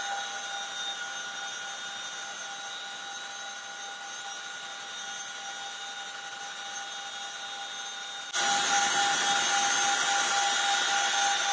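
Aircraft turbine engines whining steadily, a few fixed high tones over a constant rushing noise, heard from aboard the aircraft. About eight seconds in it jumps abruptly louder and brighter.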